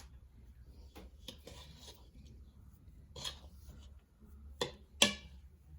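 Kitchen handling sounds while cookie dough is portioned with a cookie scoop onto a baking sheet: scattered light taps and rustles, with a sharp click about five seconds in.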